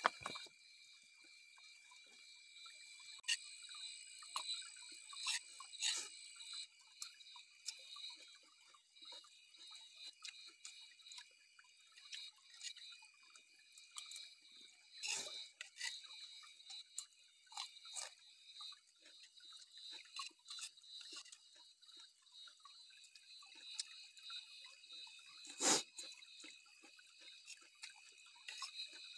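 Steady high-pitched chirping of insects in several pitches, one of them pulsing quickly, with scattered sharp clicks and taps; the loudest tap comes near the end.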